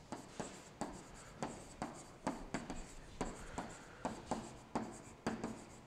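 A stylus writing words by hand on an interactive board: a string of faint taps and short rubbing strokes, about two a second.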